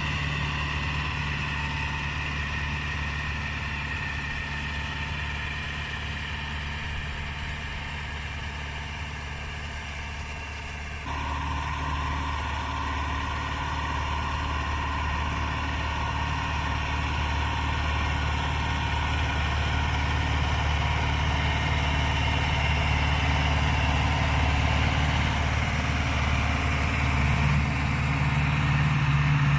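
Case CX80 tractor's diesel engine running steadily, with a high whine over the engine hum, as the tractor pulls a four-furrow plough through heavy soil. The sound changes abruptly about eleven seconds in, then grows gradually louder.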